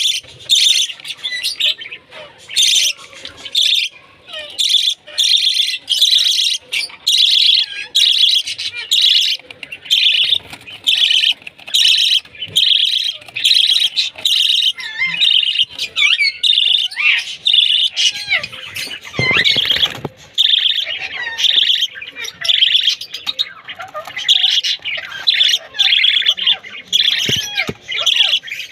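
Pet lovebird calling loudly and shrilly, the same harsh chirp repeated over and over at a bit under two a second, breaking midway into a stretch of more varied, gliding chirps before the repeated calls resume.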